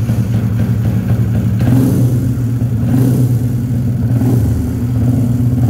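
Honda Pop motorcycle's single-cylinder four-stroke engine running steadily at idle while still fairly cold, on a newly fitted Caflex spark plug cable. Its note thickens slightly about two seconds in.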